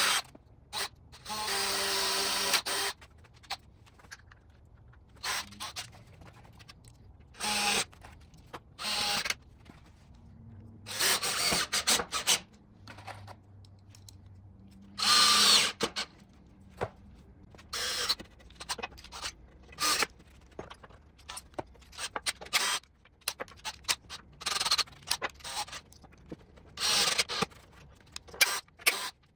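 Cordless DeWalt drill/driver running in about a dozen short bursts of a second or two each, with pauses between, as screws go into pallet-wood shelf boards to fasten them to the rack's frame.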